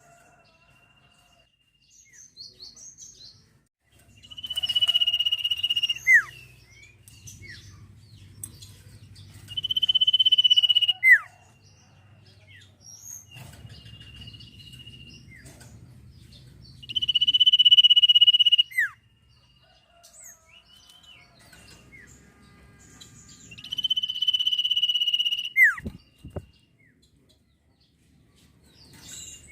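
Common iora (sirtu/cipoh) singing: long, steady high whistles lasting one to two seconds each, every one ending in a quick falling slide. The whistles come every few seconds, with softer short chirps in between.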